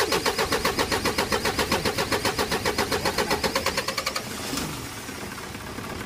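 Starter cranking an Isuzu 4HL1 four-cylinder diesel with a fast, even pulsing for about four seconds; the engine is hard to start. The pulsing then stops, leaving a quieter steady sound.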